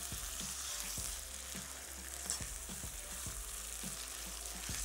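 Goat meat sizzling in hot oil with onion, ginger and garlic in a wok on a high flame, stirred with a slotted spoon that knocks against the pan now and then. The meat is being seared so that its rawness and its own water cook off.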